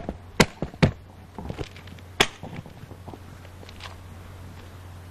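Sharp hard-plastic clicks and knocks of a Pelican case being closed up: four in the first second, a few softer ones about a second and a half in, and one more a little after two seconds, over a faint steady low hum.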